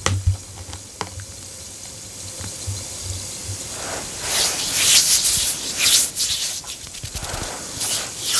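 Bath bomb fizzing in water with a faint steady hiss, with a couple of small knocks as the container is set down. From about halfway through, loud rubbing and brushing noises close to the microphone take over, then ease off, with another burst near the end.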